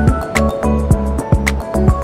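Background music with a steady beat: kick drum, bass, held melody notes and crisp percussion hits.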